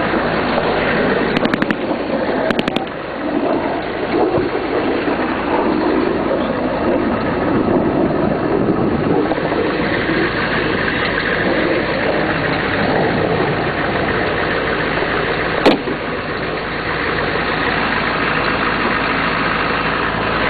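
Military vehicle's engine running steadily, heard from aboard the vehicle. A single sharp bang sounds about fifteen seconds in.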